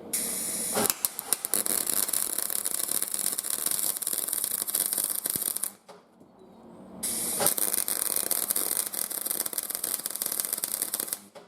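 Electric arc welding: two welding runs of crackling, frying hiss, each about five seconds long, with a pause of about a second between them, as a 3/8 drive extension is welded onto a steel spanner.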